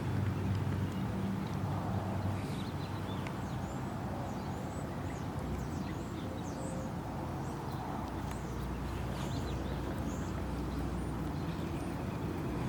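Small birds chirping in short, high calls throughout, over a steady low rumble of vehicle engines that is heaviest at the start and again near the end.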